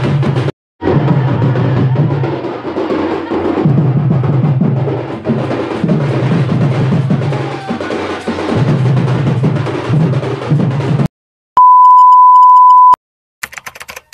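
A band of folk wedding drummers playing a rhythmic beat on barrel drums, which cuts off about eleven seconds in. A loud, steady electronic beep about a second and a half long follows.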